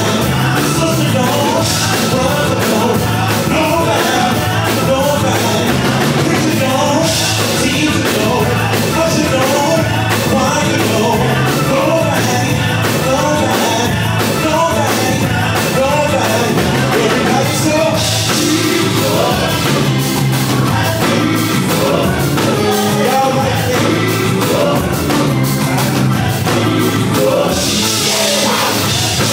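A live gospel band plays a full, steady groove on Hammond-style organ, keyboards, electric bass and drums, with singing over it. Cymbal crashes swell now and then.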